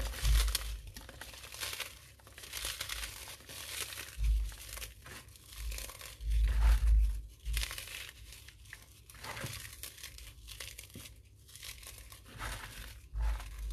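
Puffed rice cakes being crumbled by hand into a bowl: dry crackling and crunching in uneven bursts, loudest a little past the middle, with a few dull low thumps.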